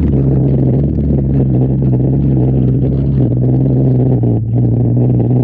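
A vehicle's engine running at a steady pitch as it drives through river water, with water rushing and splashing.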